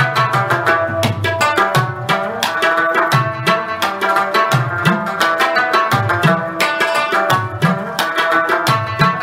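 Background music: a busy percussion rhythm with a deep drum beat a little more than once a second, over steady melodic tones.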